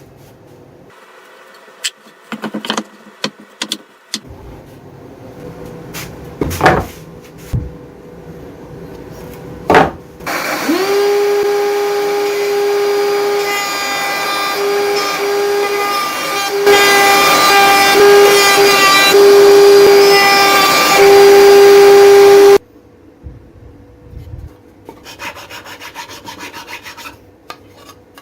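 An electric power-tool motor spins up with a quickly rising whine and runs steadily for about twelve seconds, its tone wavering slightly under load, then stops abruptly. Before it there are several sharp knocks on wood, and after it a scraping, rasping sound.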